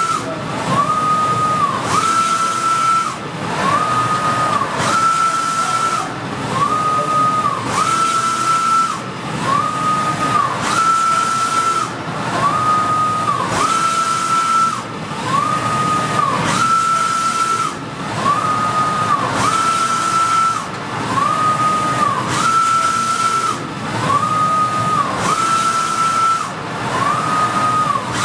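Softjet-K wide-format inkjet printer with Kyocera print heads printing: the head carriage sweeps back and forth about once a second or a bit faster, its drive whining up, holding and falling with each pass, the pitch alternating slightly between the two directions, over a steady hiss.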